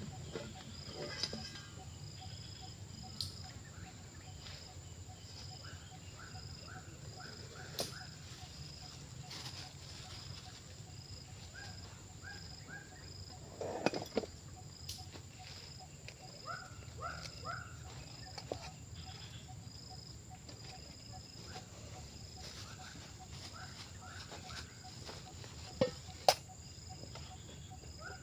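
Insects buzzing in a steady, high, even tone, with a fast run of repeated chirps and a bird giving short calls in groups of two or three. A few sharp knocks and clicks break in, the loudest about halfway through and near the end.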